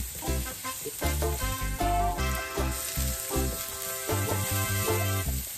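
Minced garlic sizzling in hot oil in a stainless steel wok as it is stirred with a wooden spatula, under background music with sustained notes and a bass line.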